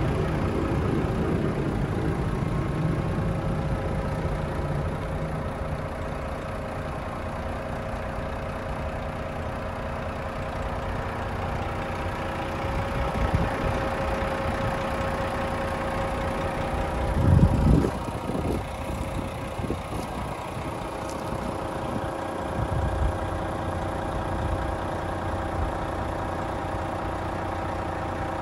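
Renault T460 tractor unit's 460 bhp Euro 6 diesel engine idling steadily. A brief low thump comes about two-thirds of the way through.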